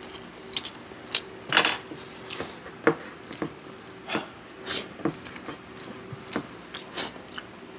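Cutlery clinking and tapping against plates while eating, about a dozen short irregular clicks, with one brief hiss a little after two seconds in.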